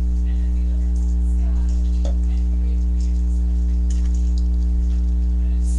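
Steady low electrical mains hum with a row of overtones, unchanging throughout, with a faint knock about two seconds in.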